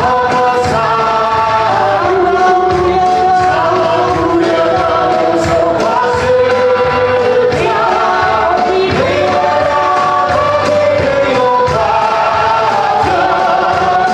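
A large congregation singing a worship song together over loud instrumental accompaniment with a steady beat.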